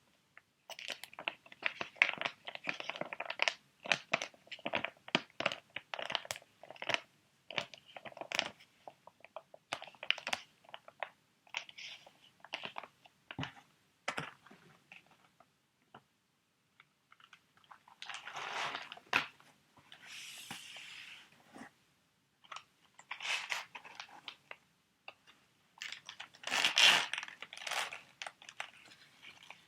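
Sheet mask packets being handled: crinkling, crunching plastic-foil wrappers with fingertip taps and scratches, in irregular bursts with a pause of a few seconds midway.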